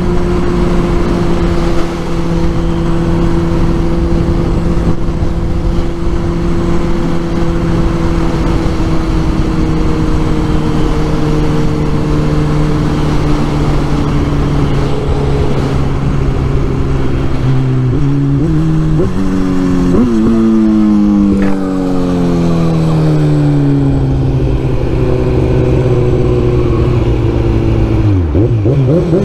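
Kawasaki Z1000's inline-four engine running under way at steady revs, the pitch slowly sinking. About two-thirds through, the revs jump up in three quick steps as it downshifts, then fall steadily as the bike slows. A steady rush of noise runs underneath.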